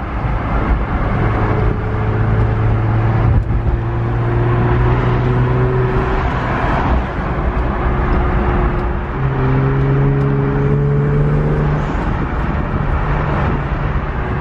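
Twin-turbo Infiniti engine heard from inside the cabin, pulling under light acceleration twice, its pitch climbing slowly each time, over steady loud road noise.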